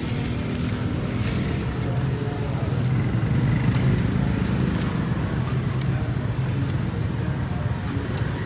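Steady hum of street traffic, with an even hiss of oil frying in a pan.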